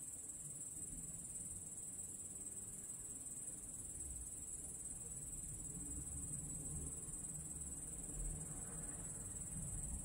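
Crickets trilling in one steady, unbroken high-pitched drone, with a faint low rumble underneath.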